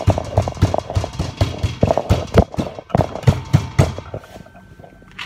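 Potato being pounded with a pestle: quick rhythmic thuds, several a second, that stop about four seconds in.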